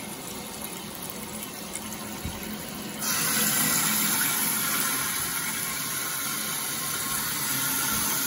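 Water rushing through a newly installed Hyper Tough toilet fill valve into the cistern, refilling the tank as the supply is turned back on. It is a steady hiss that gets suddenly louder about three seconds in.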